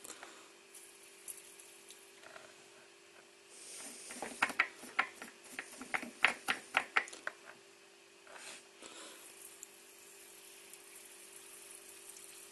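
Soldering on a circuit board: a short hiss, then a quick run of about ten sharp crackles over some three seconds as the solder's rosin flux sizzles and pops under the iron, with another short hiss a little later. A faint steady hum sits underneath.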